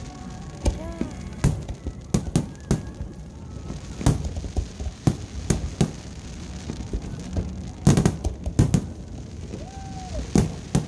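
Fireworks going off: a string of sharp bangs and pops at irregular intervals, some in quick clusters, the loudest cluster a bit under three-quarters of the way through.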